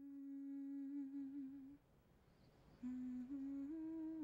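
Soft wordless humming of a slow melody. A long held note wavers and stops after about two seconds. After a short pause, a lower note rises in two steps and is held.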